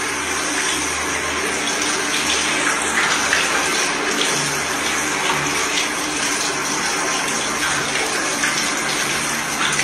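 Shower spray running steadily, heard from inside the shower stall.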